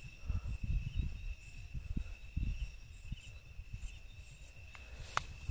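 A cricket trilling steadily at one high pitch, with soft low thumps under it and a single sharp click near the end.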